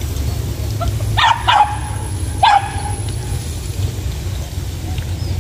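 Hunting dog barking three times in short, high yelps while chasing a mongoose: two close together about a second in, then one more a second later.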